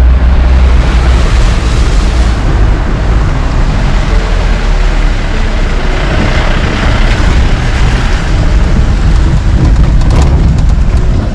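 An off-road vehicle running on a rough dirt track, with a loud, steady low rumble of engine and road noise.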